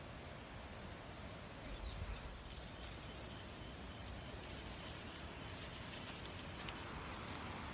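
Faint, steady outdoor ambience with a few soft, faint bird chirps about two seconds in and a single light tick near the end.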